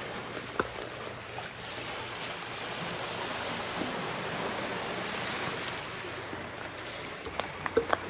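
Sea waves washing against the shore: a steady rushing noise that swells in the middle and eases, with a few sharp clicks near the end.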